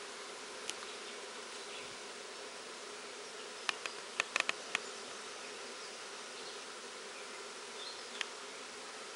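Honeybee swarm buzzing steadily, a dense hum of many bees. A quick cluster of sharp clicks sounds about four seconds in, with single clicks near the start and near the end.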